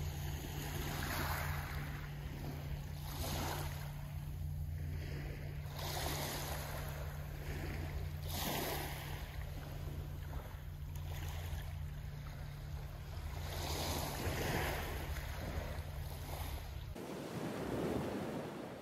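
Small waves washing onto a pebble beach, swelling and fading about every two seconds, over a steady low hum.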